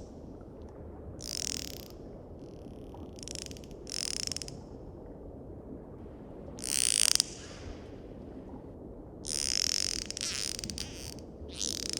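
Dolphins calling over a steady low water hiss: a handful of short high whistles that waver up and down, mixed with rapid click trains. The loudest whistle comes just past the middle, and a longer cluster of whistles and clicks follows a few seconds later.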